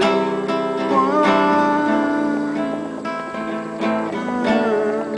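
Acoustic guitar strummed, playing a steady chord accompaniment.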